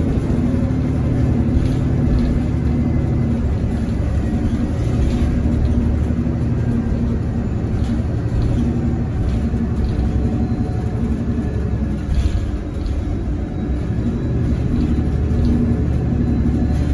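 Cabin sound of a 2018 Nova Bus LFS hybrid-electric city bus under way: a steady low rumble from its series-hybrid drive (BAE HybriDrive electric motor, Cummins B6.7 diesel generator engine) and the road, with a faint steady hum. The sound eases off briefly about twelve seconds in.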